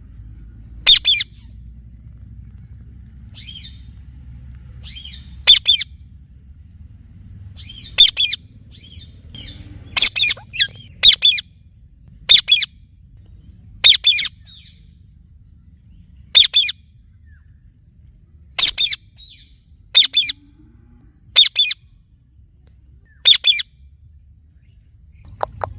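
Indian ringneck parrot giving short, shrill squawks, about a dozen of them at irregular intervals of one to two seconds, over a faint low background rumble.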